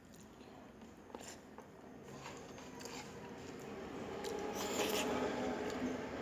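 Quiet eating sounds: rice and taro-leaf curry being chewed and handled, with soft rubbing and small clicks that grow louder toward the end.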